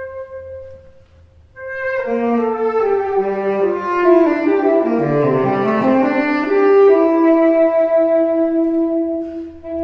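Tenor saxophone playing a long held note that fades into a brief pause, then coming back in as the chamber ensemble of strings, horn and woodwinds joins, many lines sounding together before settling onto a long sustained note.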